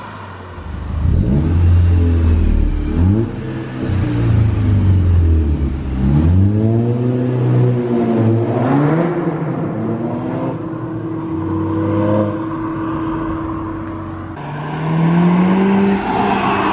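Volkswagen Scirocco 2.0 TSI turbocharged four-cylinder, APR Stage 1 tuned, through a Milltek Sport non-resonated turbo-back exhaust, accelerating hard through the gears. The pitch climbs and drops at each shift, holds a steady note for a few seconds, then climbs again near the end.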